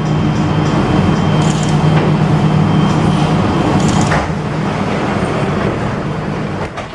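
Steady hum inside the cabin of a Mitsubishi Crystal Mover rubber-tyred automated people mover, with a couple of faint clicks, easing off slightly near the end.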